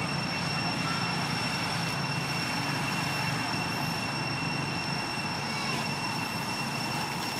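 Steady outdoor background drone: a low rumble under a constant high-pitched whine, with no distinct event.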